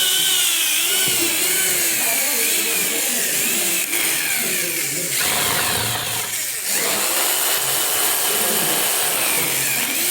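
A power tool such as a drill running loudly, its whine repeatedly rising and falling in pitch.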